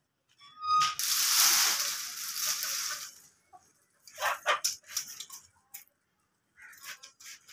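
Dry twigs and brushwood being handled. There is a loud dry rustle for about two seconds, then scattered cracks and snaps as sticks are pulled from the pile.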